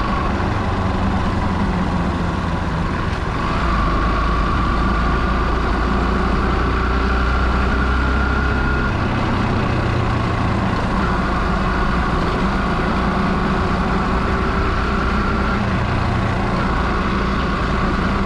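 A vehicle's engine and road noise as it drives along: a steady low rumble that grows a little louder about three and a half seconds in, with a faint whine that comes and goes.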